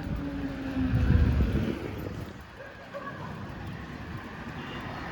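A motor vehicle passes close by, its engine note falling slowly in pitch as it goes, loudest about a second in and fading within a second after. Steady street and road noise follows.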